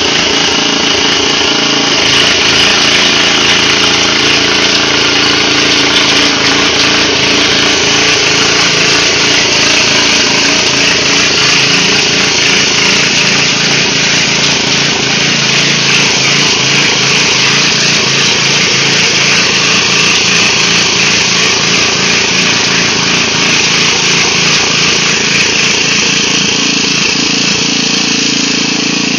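Single-cylinder gasoline engine of a 1989 Troy-Bilt Pony rear-tine rototiller running steadily under load as its tines churn into grass and soil, a little louder from about two seconds in.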